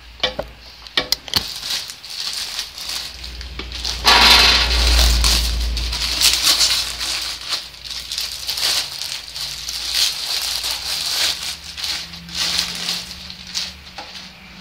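A thin plastic packaging bag crinkling and rustling as a flat-panel LCD monitor is slid out of it, after a few sharp clicks and knocks at the start. The crinkling is loudest about four seconds in.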